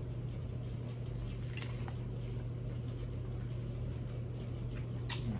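Close-miked chewing and mouth sounds of someone eating a taco, with a few faint clicks and one sharper crunch near the end, over a steady low hum.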